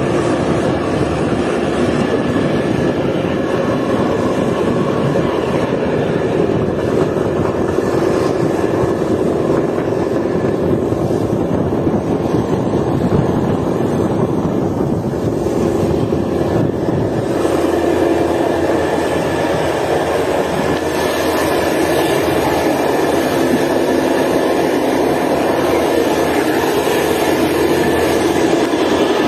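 TCDD Konya Blue Train passenger train running along the line: a steady, continuous rumble of the train on the track.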